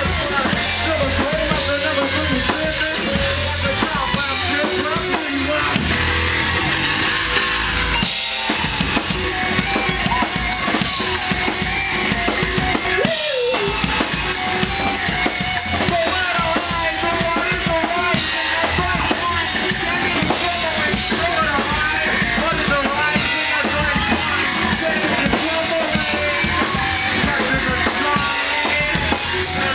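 A band playing loud rock music live, with the drum kit out front: bass drum and snare hits under guitar.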